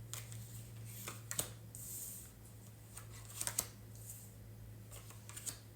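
Tarot cards being handled and shuffled: a few short flicks and rustles of card stock, over a steady low hum.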